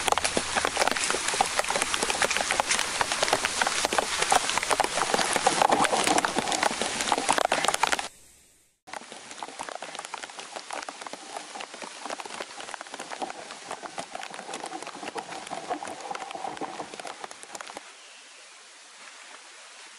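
Rain pattering densely on a shelter of dry leaves and a tarp. It cuts out abruptly for a moment about eight seconds in, comes back quieter, and near the end settles to a soft steady hiss.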